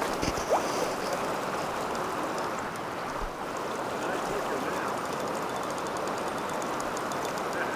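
Fast-flowing creek water rushing over riffles and rocks, a steady, even rush.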